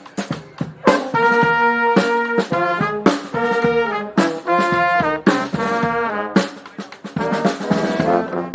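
Brass band playing: horns holding chords over steady drum beats, with the horns coming in about a second in.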